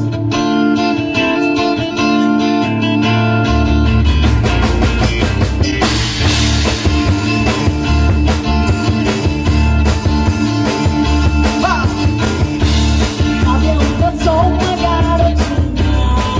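Live pop-rock band playing, with acoustic guitar, electric bass and a drum kit. The bass and drums come in heavily about three and a half seconds in, and a woman sings toward the end.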